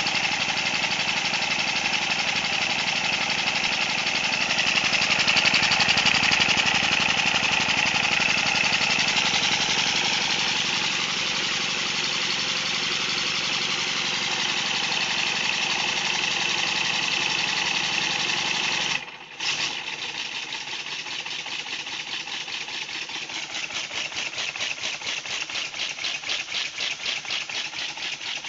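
Homemade model steam engine running fast on compressed air, with a rapid, even beat of exhaust and mechanical clatter. It briefly drops out about two-thirds of the way through, then runs on more quietly with the beat more distinct.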